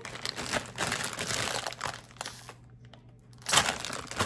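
A plastic chip bag of spicy Funyuns crinkling as it is handled and pulled open. It crackles for a couple of seconds, goes quieter, then gives a short, louder crackle about three and a half seconds in.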